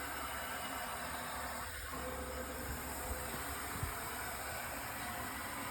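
Steady low hum and hiss from a powered-up Parlec tool presetter and its computer, even throughout with no clicks or knocks.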